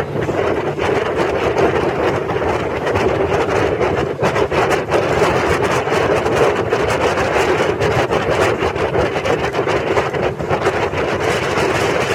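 Motor boat running at speed: a steady engine and rushing-water noise with frequent short knocks throughout.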